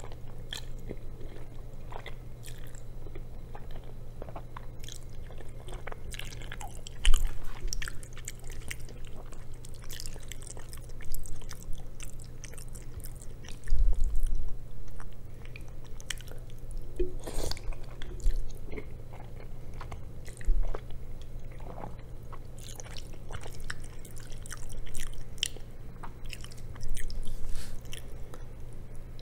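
Close-miked chewing and slurping of jajangmyeon (black bean noodles), with louder bites and slurps every few seconds over a low steady hum.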